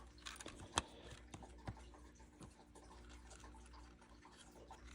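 Faint, scattered light clicks and taps of a smart door lock being turned over in the hands. The sharpest tap comes about a second in, with a few softer ones after it.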